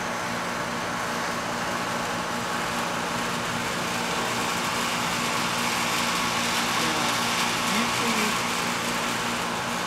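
A steady machine hum with a broad hiss over it, a little louder in the second half.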